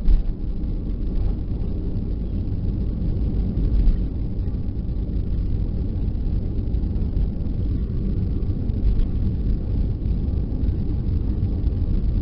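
Steady low rumble of a Boeing 737-400's engines and rushing air, heard inside the passenger cabin as the jet comes in to land. There is one brief louder knock about four seconds in.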